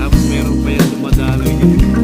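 Background music with drums, bass and guitar and a steady beat.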